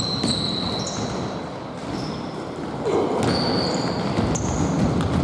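Basketball game play in a gym: a basketball bouncing on the court with knocks and short high squeaks from the players' movement, echoing in the hall.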